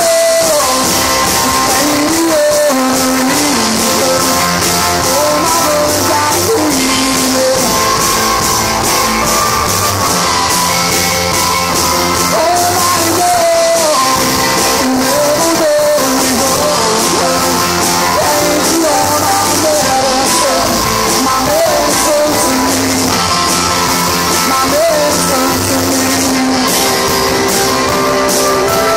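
Live rock band playing loudly on drum kit, stage piano, bass and electric guitar, with a male singer, picked up by a phone's microphone with rough, poor-quality sound.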